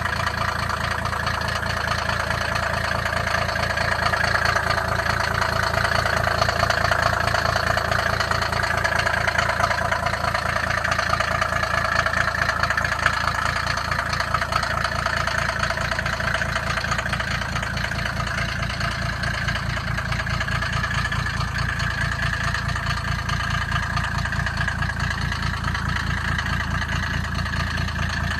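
Mercedes G W460 300 TD turbodiesel engine idling with a steady, even pulse.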